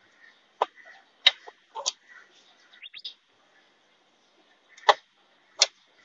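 Sharp metallic clicks and clinks of a socket wrench on the 10 mm bolts of a scooter's gearbox cover as they are undone, coming singly and spread out, with two louder clinks near the end.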